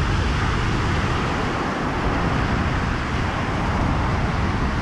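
Steady rush of ocean surf breaking and washing up a sandy beach, with a low rumble of wind on the microphone.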